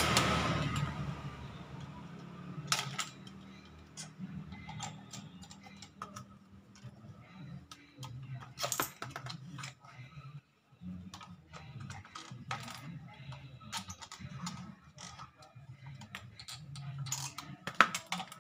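Irregular small clicks and taps of plastic and metal as a screwdriver pries the lower plastic latches of a car's fuel pump housing apart, over a faint steady low hum.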